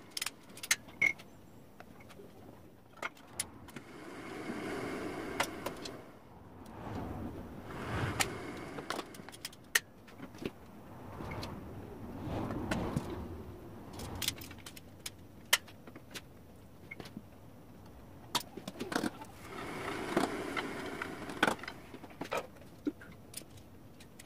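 Wooden spindles being handled and fitted into the drilled seat of a Windsor chair: scattered sharp clicks and knocks of wood on wood, with four longer scraping sounds of a second or two each.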